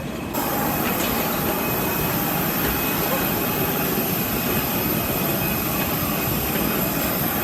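Steady loud rushing noise of an airliner at boarding, starting abruptly about half a second in and holding even.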